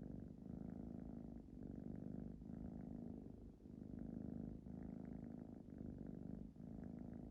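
Ragdoll cat purring steadily, the purr pulsing with each breath in and out, about once a second.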